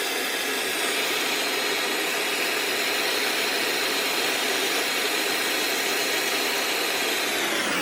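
Electric hot-air gun blowing steadily while heating a spark plug to burn off oil deposits. Near the end its fan whine starts to fall in pitch as it is switched off.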